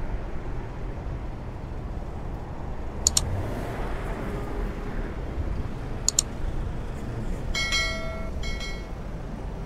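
Steady low rumble of street traffic. A sharp double click comes about three seconds in and again about six seconds in, and two short high beeps sound near the end.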